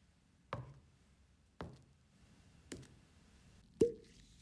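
Glass jars and a glass bottle handled on a workbench: four sharp knocks about a second apart, the last and loudest with a short ring like glass.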